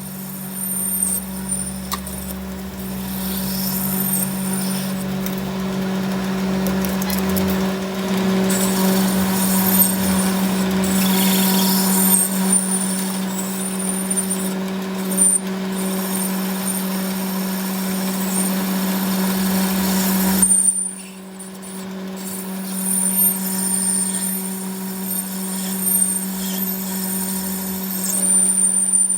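A machine running with a steady hum and mechanical noise; the noise thins out about two-thirds of the way through while the hum carries on.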